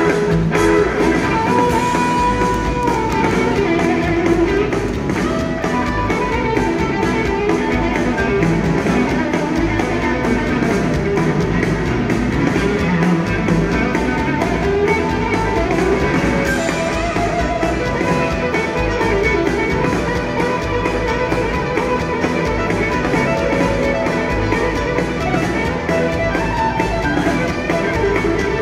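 Live blues-rock band with an electric guitar, a Stratocaster-style instrument, playing a lead solo over drums and bass.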